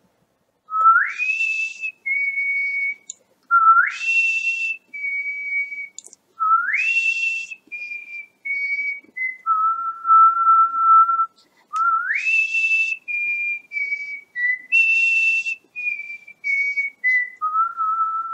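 A whistled melody over the end card: phrases that each open with a quick upward slide of about an octave, then step down through short notes, with a long held low note in the middle and again near the end.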